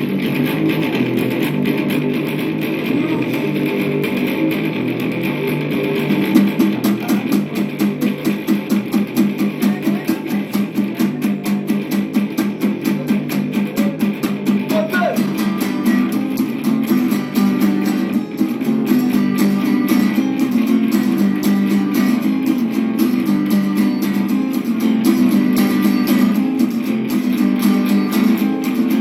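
Amateur band playing a song on guitar and bass guitar, with a stretch of fast, even strumming from about six seconds in until about sixteen seconds in.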